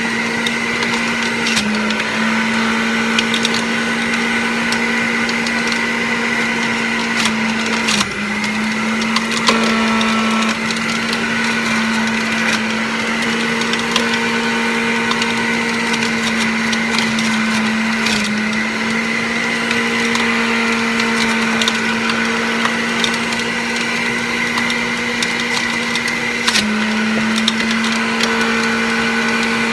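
Centrifugal juicer motor running steadily while produce is fed into its spinning blade basket and shredded with a crackling, splintering sound. The motor's hum sags briefly four times as pieces load it, then picks back up.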